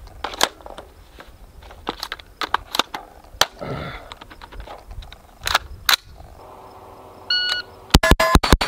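Clicks and clacks of a Sig MCX Spear LT 5.56 rifle being handled to clear a double feed. Then comes a short shot-timer beep and a rapid string of rifle shots near the end.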